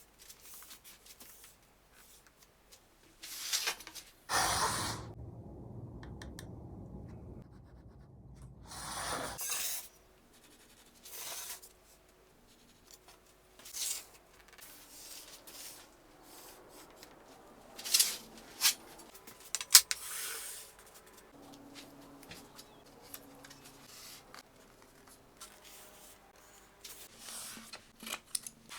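Scattered handling sounds of workbench work: rubbing and scratching on material, a couple of longer scraping sweeps early on, and a few sharp clicks a little past the middle.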